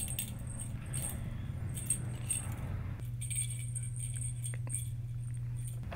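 Small bell inside a plastic cat-toy ball jingling in short, irregular bursts as kittens bat at it, over a steady low hum.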